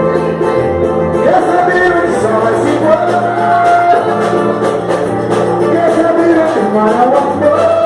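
Pagode music: singing over drums and other instruments, with a steady beat.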